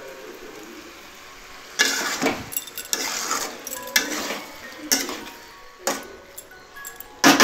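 A metal spoon stirring a thick vegetable mixture in a metal kadai, scraping and clinking against the pan about once a second after a quieter first two seconds. The loudest clank comes near the end.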